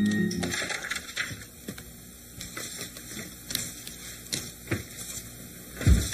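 Scattered light knocks and clicks, then one heavy low thump near the end.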